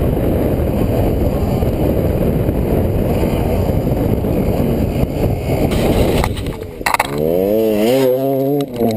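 KTM 300 two-stroke dirt bike riding fast, heard from a helmet camera as a dense rumble of engine and wind buffeting on the microphone. After a cut about six seconds in, a two-stroke dirt bike engine revs up with a rising pitch and then holds steady as it passes close by.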